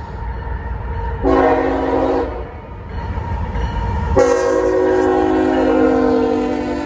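CSX freight locomotive air horn sounding two blasts, a short one about a second in and a long one starting about four seconds in, over the low rumble of the approaching diesel locomotive.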